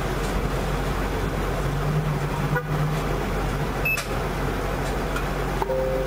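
Steady rush of road traffic from passing cars and trucks, with a low drone for about a second and a half near the middle and a brief two-tone car horn honk near the end.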